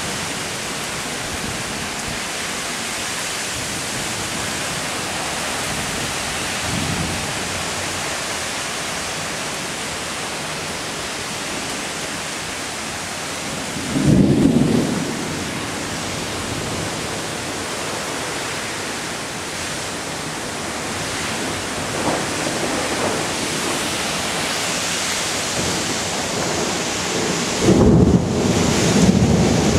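Heavy thunderstorm rain pouring in a steady hiss, with two louder low rumbles: a short one about 14 seconds in and a longer one near the end.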